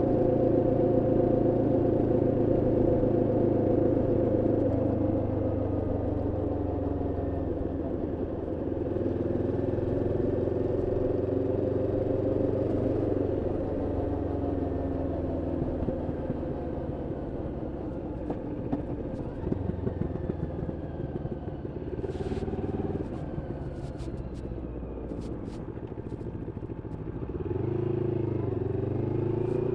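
Moto Morini X-Cape 650's parallel-twin engine running on the road during running-in, ridden gently. It holds a steady note, eases off with the pitch falling about a third of the way in, then picks up again near the end.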